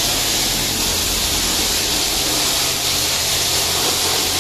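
Pressure-washer jet spraying high-pressure water onto a motorcycle's rear wheel and underside: a loud, steady hiss with a steady low hum beneath it.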